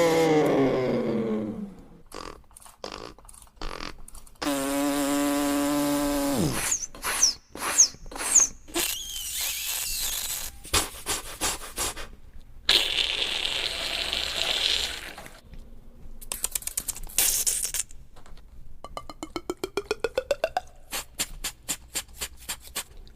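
Beatboxer imitating the tool and workshop noises of a restoration video with mouth and voice: a string of short, varied effects, among them a held tone that drops away, hissing and rattling noises, and near the end a fast run of clicks under a rising whine.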